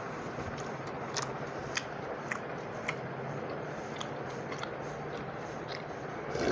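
Chewing with small wet mouth clicks while eating watery fermented rice by hand, over a steady background hiss. Near the end a louder slurp as the steel pot is raised to drink the rice water.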